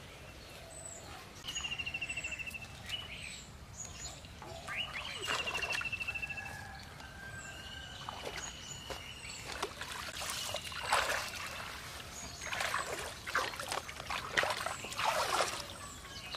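Birds calling, including a rapid trilled call twice in the first half and many short high chirps. From about ten seconds in, bouts of water splashing and trickling come and go.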